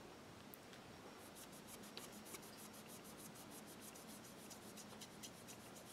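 Faint, quick scratchy strokes of a foam sponge-tip applicator rubbing pearlized pigment powder onto a gel-polished plastic practice nail, several strokes a second, starting about a second in.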